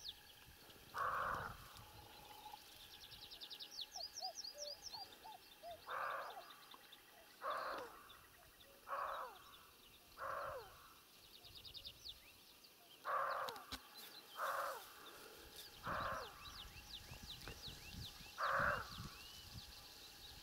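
Siberian roe deer buck barking, about nine short barks at irregular gaps of one and a half to five seconds, which the hunter takes for the buck shouting at a rival buck. Small birds sing faintly between the barks.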